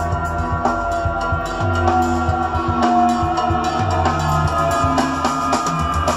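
Music from a CD played back through Bose Freestyle speakers driven by a vintage Marantz PM500 DC amplifier, with the tone shaped by the amp's five-band graphic equalizer as its sliders are moved.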